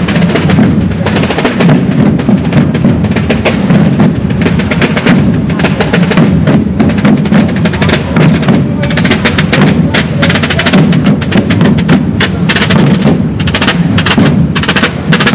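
Procession drums played by a corps of hooded penitents: a loud, dense rattle of rapid stick strokes, like a continuous drum roll. In the second half the individual strokes stand out sharper and more separate.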